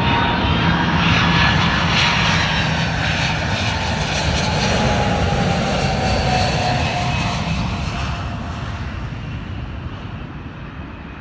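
Twin-engined DHL cargo jet flying low overhead on its landing approach. The engine noise is loud, its whine falling in pitch as the jet passes, and it fades away over the last few seconds as the aircraft heads off toward the runway.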